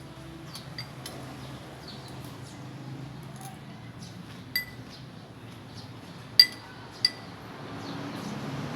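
Cutlery clinking against dishes during a meal: light ticks, then three sharp ringing clinks in the second half, the middle one the loudest, over a faint steady hum.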